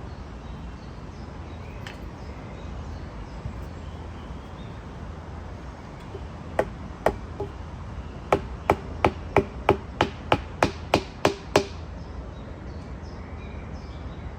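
A stake being hammered in for a log shelter wall: sharp wooden blows, two spaced strikes and then a steady run of about a dozen, roughly three a second.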